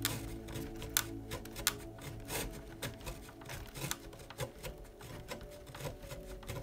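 Small screwdriver turning a self-tapping screw into a plastic RC car body: irregular small clicks and ticks of the driver and screw, over soft background music.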